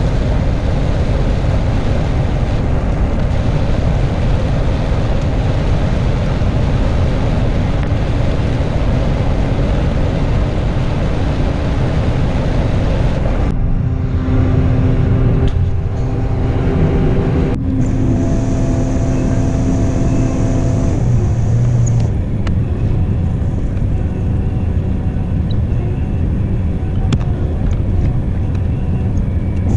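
John Deere 9500 combine running steadily while harvesting corn. There is a loud low rumble, with abrupt changes in the sound about halfway through, where a steady hum comes in for a few seconds.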